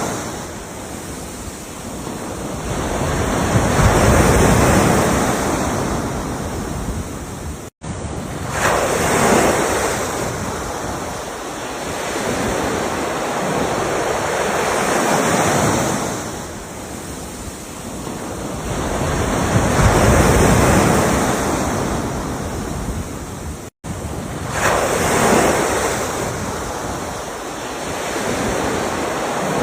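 Ocean waves breaking and washing up the shore, a new surge swelling and ebbing every four to five seconds. The sound cuts out for an instant twice.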